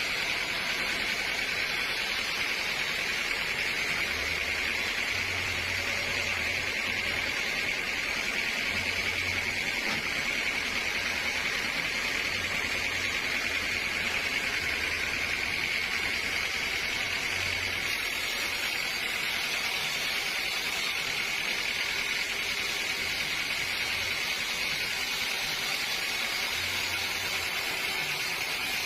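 Sawmill machinery running steadily: a continuous hiss with a high whine that holds the same level throughout.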